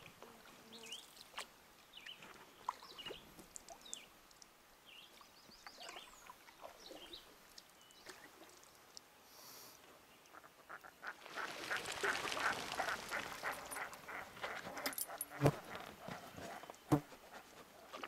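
Birds calling and chirping, with a few seconds of rapid, harsh calling past the middle, and two sharp knocks near the end, as of a paddle against the canoe.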